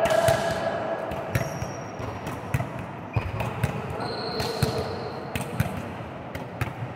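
Volleyballs being struck and bouncing on a gym floor: many sharp, irregular smacks and thuds, several a second, over a steady background hubbub.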